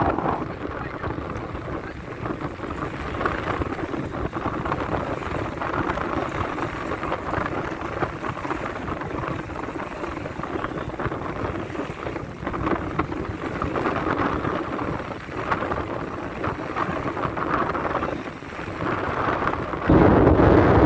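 Strong wind buffeting a phone's microphone, a rumbling noise that swells and dips in gusts, with a sudden louder gust about a second before the end.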